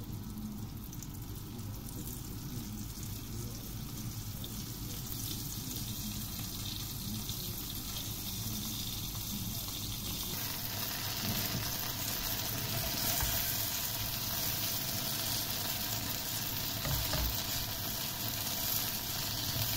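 Oat-flour-coated okra pods sizzling steadily as they shallow-fry in oil in a pan. The sizzle grows brighter and fuller about halfway through, when the pan is full of browning okra.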